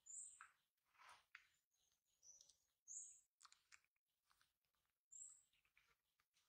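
Baby monkey squeaking: short, high-pitched chirps about every two to three seconds, with softer, lower cries and faint clicks in between.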